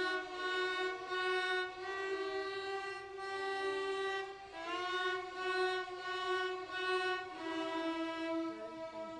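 A section of young student violins and violas bowing a simple fiddle-tune phrase in unison, held notes changing about once a second. Around halfway through, a note is reached with a short upward slide of the finger.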